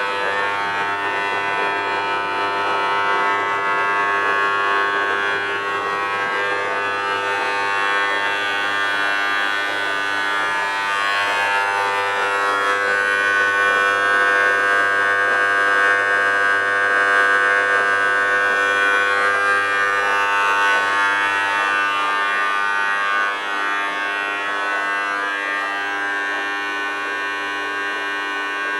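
Thor WP5G benchtop dishwasher making a loud, steady buzzing drone, a little louder around the middle. This is the abnormal noise it makes for about three minutes every cycle.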